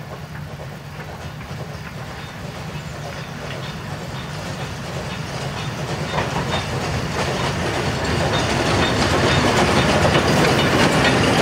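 Narrow-gauge steam locomotive I K 54 hauling its short train, approaching and then passing close by, growing steadily louder.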